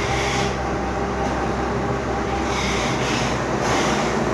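A motor running steadily with a low droning hum, overlaid by a hissing swish that rises and falls every second or so.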